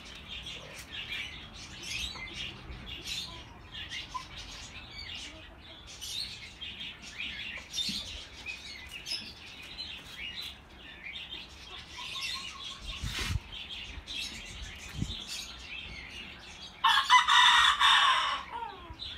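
Small birds chirping continually, with a rooster crowing once, loudly, near the end.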